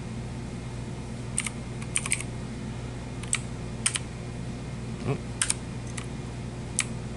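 Keys being pressed on a mechanical gaming keyboard: separate sharp clicks, single or in quick pairs, about one a second at an uneven pace, over a steady low hum.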